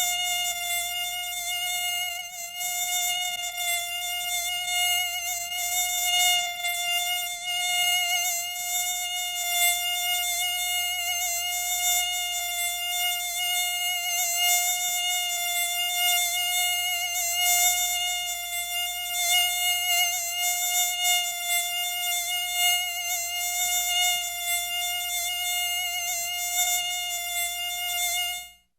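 Mosquito's high-pitched wingbeat whine, a steady hum near 700 Hz with many overtones, its loudness wavering slightly as if the insect drifts close to the ear.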